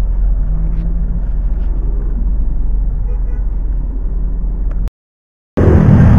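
Steady low rumble of a car's engine and road noise heard inside the cabin. It cuts off abruptly about five seconds in. After a brief gap, a louder motorcycle-tricycle engine comes in, running with wind and street noise from the open sidecar.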